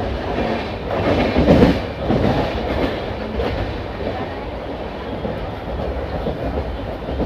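Passenger train running along the track, wheels clattering steadily on the rails, with a louder surge of rumbling about a second in.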